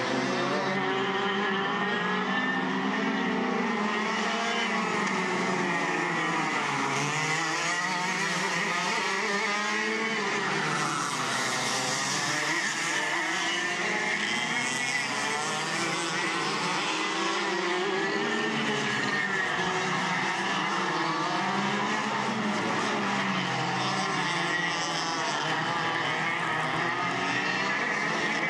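Several go-kart engines racing around a track, their pitch rising and falling again and again as the karts accelerate and slow through the corners. The engines overlap throughout.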